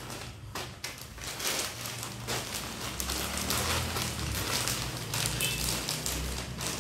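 Clear plastic bags of snack crackers crinkling and rustling as they are handled and packed into a cardboard box, with a steady crackle of small clicks throughout.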